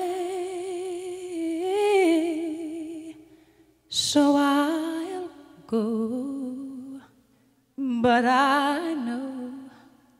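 A single voice singing long wordless held notes with vibrato, in four phrases separated by short pauses, with little or no accompaniment; the last note fades out near the end.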